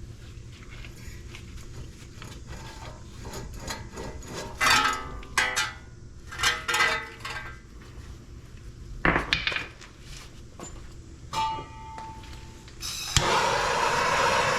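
Metal clinks and clanks of hand tools and car parts being handled, some with a short metallic ring. Near the end a steady loud rushing noise starts.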